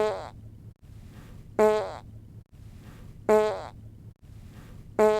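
Fart sound effect: a short, pitched fart that starts loud and fades within about half a second, repeated the same way roughly every second and a half, with a faint low rumble between the repeats.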